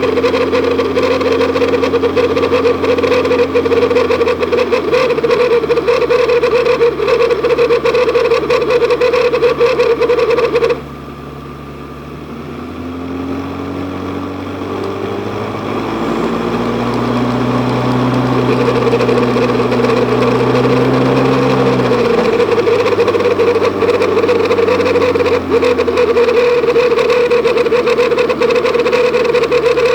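Pontiac GTO with a T56 manual gearbox, running with a strong steady high drone over the engine and road noise. The drone cuts off suddenly about a third of the way in, leaving the engine note rising and falling, then creeps back and is loud again near the end. This is the owner's intermittent noise, which comes and goes with bumps and clears faster when the gearbox is shifted in and out of neutral.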